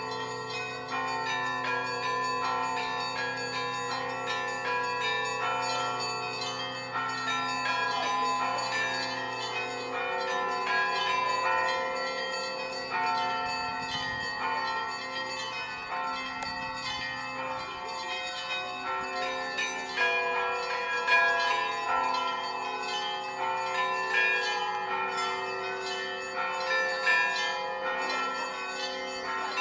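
Russian Orthodox church bells ringing together in a continuous peal. Many bells of different pitches are struck in a dense, fast pattern over the hum of a low bell, and that hum dies away about a third of the way through.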